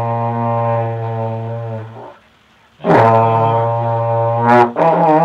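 Trombone played by a beginner with the slide in first position: a held low note that wavers and breaks off about two seconds in, then after a short pause two more sustained notes, the last with an unsteady, wobbling pitch.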